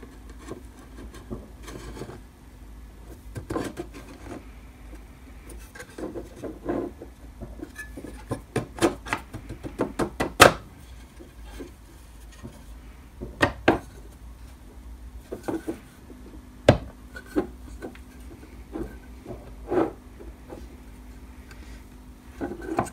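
A thin aluminium sheet panel being slid into the slotted corners of an aluminium enclosure frame: irregular metallic taps, clicks and rubbing, with a quick run of taps around the middle and one sharp knock later on.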